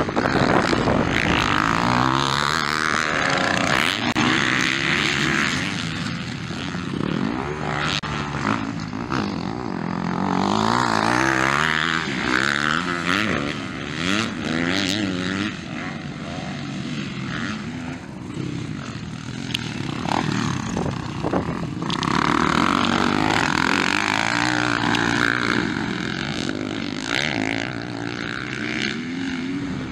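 Motocross bike engines racing past, revving hard with the pitch climbing and dropping over and over as the riders accelerate and back off through the track, at times more than one bike at once.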